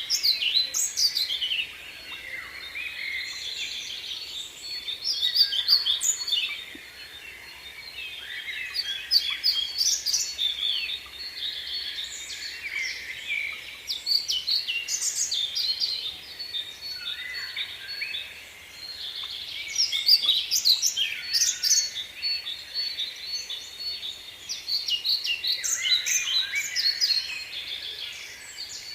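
Small songbirds singing and chirping in quick, tumbling phrases that come in bursts every few seconds. A thin, steady high whine runs underneath.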